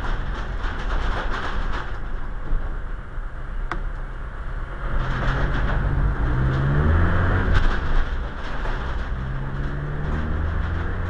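Vehicle engine running, its pitch rising about five seconds in and then holding steady, with scattered light clicks and rattles.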